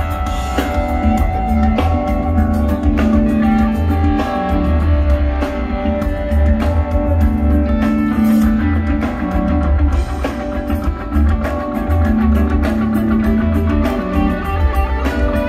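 Live rock band playing an instrumental passage on electric guitars, electric bass and drum kit, with a strong, deep bass line, heard from the audience.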